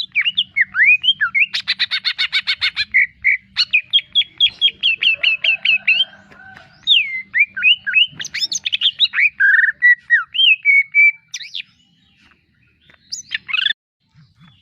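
Green leafbird (cucak ijo) singing a fast, varied song of whistled, sliding notes. About two seconds in comes a rapid harsh chattering run, and there is a short pause before a last phrase near the end.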